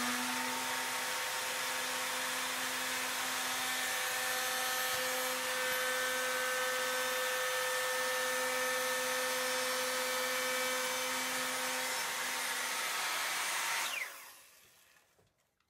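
Router with a slot-cutting bit running at full speed while cutting a spline slot across an end-grain break in a wooden chair leg, a steady whine. About 14 seconds in the motor is switched off and winds down, falling in pitch until it stops.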